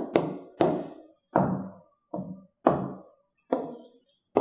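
A marker pen knocking and tapping against a whiteboard as a line is written: a string of about eight sharp taps, roughly one every half second.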